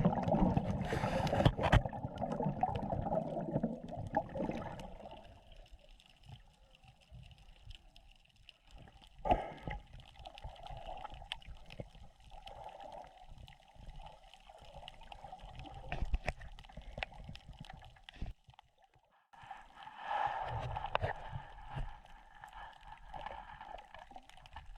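Water gurgling and sloshing around an underwater camera for the first few seconds. Then quieter underwater ambience follows, with scattered sharp clicks, a faint steady hum and brief swells of water noise about nine seconds in and again near twenty seconds.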